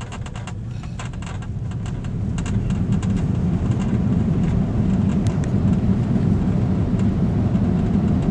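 Airliner cabin noise during a high-speed roll along the runway: a steady, deep rumble of engines and wheels that grows louder over the first three seconds and then holds.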